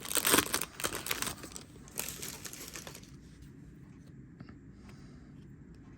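Foil booster pack wrapper crinkling and tearing open with sharp crackles for about three seconds, then only faint room tone.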